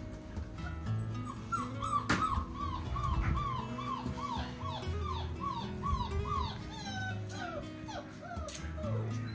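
Wolfdog puppies whimpering in a run of short, falling squeals, about two or three a second, over background music. There is one sharp knock about two seconds in.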